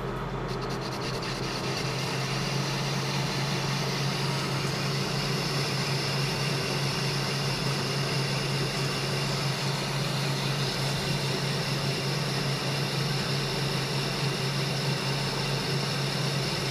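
A 1A616 lathe's 2.8 kW motor, driven directly through a frequency inverter with no gearbox, turns a steel bar under a heavy cut at 0.2 mm per revolution. The motor hums steadily under the cutting noise and strains near its limit. The sound grows a little louder about two seconds in, as the deeper cut bites.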